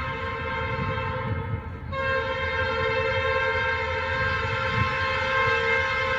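Diesel locomotive air horn sounding a long, steady blast of several notes, easing briefly just before two seconds in and then sounding on, over the low rumble of the passing train.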